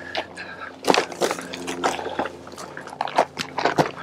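Hiking boots crunching and scuffing on loose rock and gravel, stepping down a steep slope in sharp, irregular footfalls, with a steady low hum underneath.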